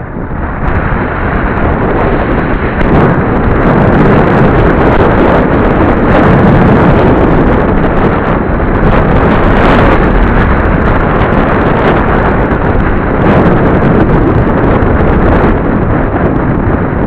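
Heavy wind buffeting the microphone of sunglasses-mounted camera on a road bike descending at speed, growing louder over the first few seconds as the bike picks up pace, then holding steady.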